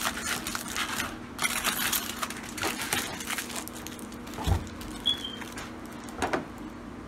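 Aluminium foil crinkling as it is scrunched and twisted around a potato, then two dull knocks a couple of seconds apart in the second half.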